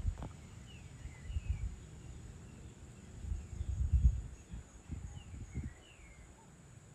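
Wind buffeting the microphone in uneven gusts, strongest about four seconds in. Faint short downward bird chirps come every second or two.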